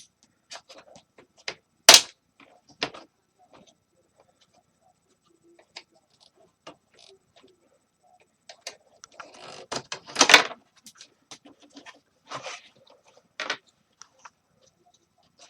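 Plastic parts of a space heater being forced apart by hand: scattered sharp clicks and cracks, with a sharp snap about two seconds in and a longer spell of cracking about nine to ten seconds in.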